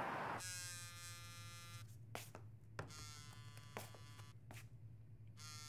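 Mobile phone ringing with an incoming call: a buzzy electronic tone that sounds in repeated bursts of about a second and a half, over a low steady hum.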